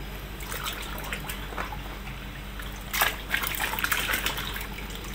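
Water splashing and sloshing as a hand swishes a mud-caked toy vehicle through a basin of muddy water, with a louder splash about three seconds in.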